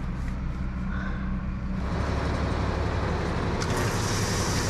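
A steady low machine drone, with a rushing hiss that grows louder about two seconds in.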